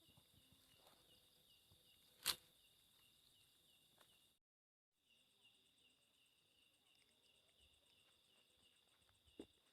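Faint crickets chirping steadily in a pulsing rhythm, with one sharp click about two seconds in and a brief moment of complete silence near the middle.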